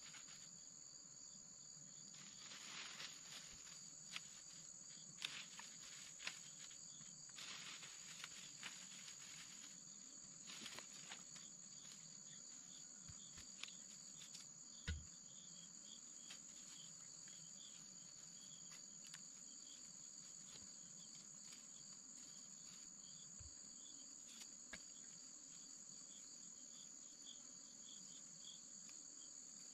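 Forest insects droning steadily at a high pitch, with another insect chirping over and over in the second half. Leafy branches crackle and rustle as they are handled, mostly in the first half, and there is one soft thump about halfway through.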